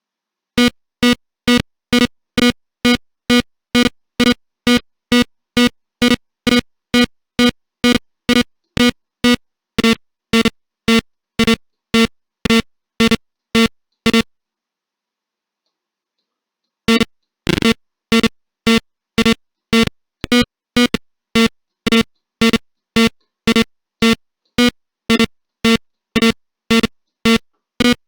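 Alarm clock buzzer sounding the alarm: short, evenly spaced, low-pitched electronic beeps, about two a second. The beeping stops for about three seconds midway, then starts again.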